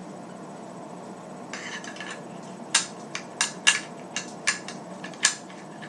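Metal shotgun parts being fitted back together by hand: a short scrape and rustle, then a quick string of sharp metallic clicks and clacks starting almost three seconds in.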